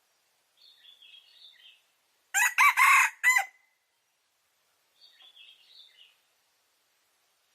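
A rooster crows once, a short cock-a-doodle-doo of a little over a second, starting about two seconds in. Faint high chirps come before and after it.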